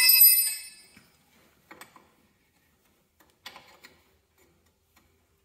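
A steel wrench lands on the concrete floor with a loud, bright metallic ring that dies away within about a second. A few light metallic clicks and knocks follow as hydraulic hose fittings are handled at the valve.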